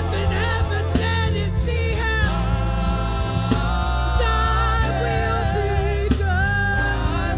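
Gospel worship music: a wavering, sustained sung line without clear words over heavy bass, keys and regular drum hits.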